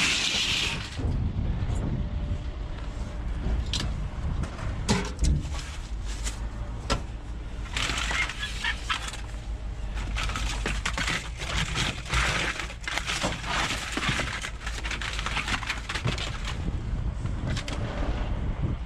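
Scrap being handled and sorted by hand: irregular knocks, clinks and rustling, with a longer stretch of scraping and rummaging in the middle, over a steady low rumble.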